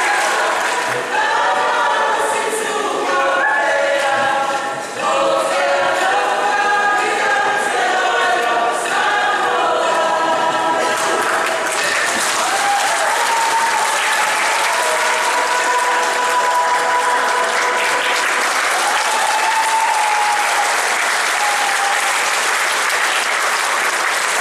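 A mixed group of women, men and children singing together over steady audience applause. The singing ends about eleven seconds in and the applause carries on, with a few long drawn-out voices heard over it.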